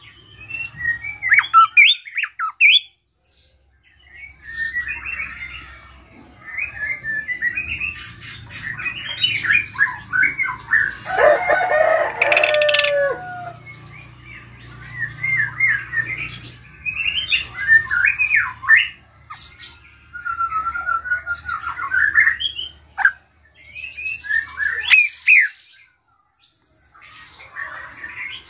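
Caged drongo singing in long, varied bursts of whistles, gliding notes, harsh squawks and chattering trills: the full, mimicry-packed song that keepers call 'gacor full isian'. It pauses briefly a few seconds in and again near the end.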